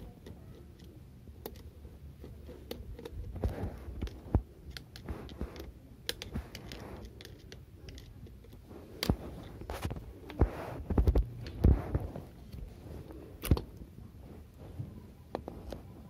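A screwdriver working the screws out of a gas water heater's brass water valve, with irregular small clicks, scrapes and a few sharper knocks as the metal parts are handled and the valve is taken apart.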